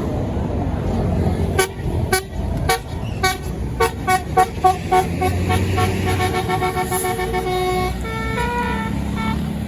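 Tour bus's telolet basuri horn, a multi-tone musical horn, playing a string of short toots from about a second and a half in that speed up into a quick run. It then plays a melody of held notes that step up and down in pitch, over the low rumble of the bus engine.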